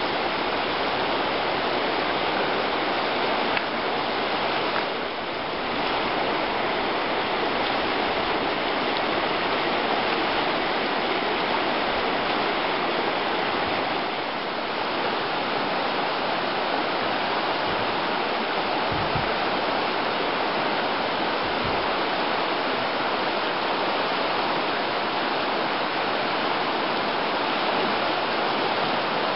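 McKenzie River rushing over its rapids: a steady, loud hiss of fast-flowing water.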